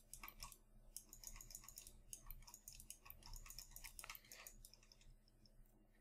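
Near silence with faint, irregular clicking from computer input devices, several clicks a second, thinning out near the end.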